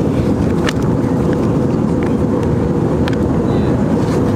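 Steady in-flight cabin noise of an Airbus A320-family jet: a deep, even rush of engine and airflow noise with a constant hum, and a few faint clicks.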